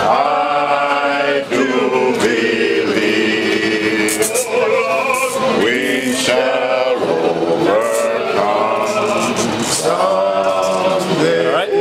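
A group of men singing together in chorus, a slow chant-like song with long held notes.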